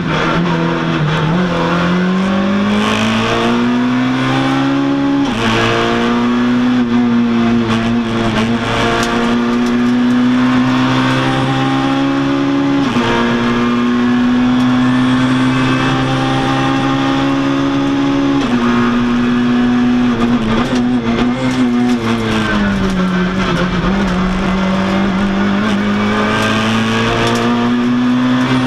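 Citroën rally car's engine heard from inside the cabin under hard acceleration. Its pitch climbs and drops sharply at upshifts about 5 and 13 seconds in. It then falls away from about 18 seconds as the car slows and shifts down, and climbs again near the end.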